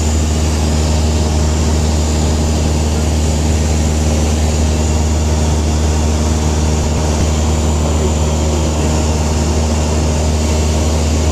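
Steady drone of a light high-wing airplane's engine and propeller heard from inside the cabin in flight: a strong low hum under an even rushing hiss.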